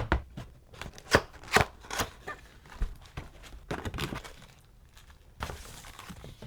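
Cardboard box and packaging being handled and opened: irregular knocks, taps and rustling, with the sharpest knocks about a second in and near the middle.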